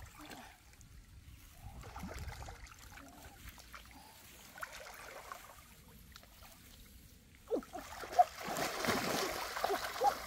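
Hands splashing and sloshing in shallow muddy pond water while wading, soft and intermittent at first, then a loud burst of splashing near the end as she churns the water grabbing at the mud.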